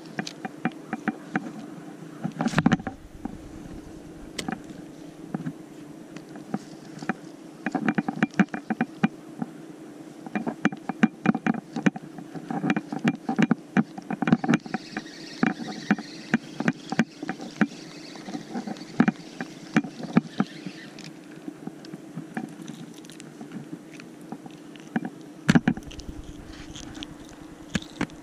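Spinning reel cranked fast on a retrieve and a caught mackerel handled: many quick clicks and rattles from the reel, line and fish, over a steady low hum.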